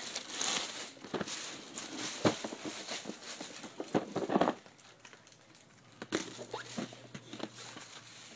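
A toy set's box being handled and moved: scattered taps, rustles and crinkles of the packaging, with a couple of louder knocks.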